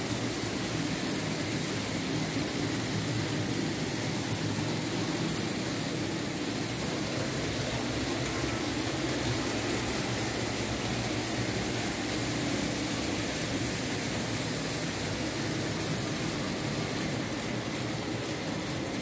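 Märklin H0 model BR 74 steam locomotive running with its train on the track: a steady whir from the electric motor and the rolling noise of wheels on the rails.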